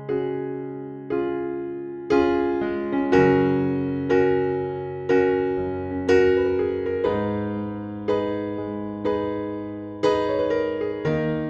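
Background music: a piano playing calm chords, a new chord struck about once a second and left to fade.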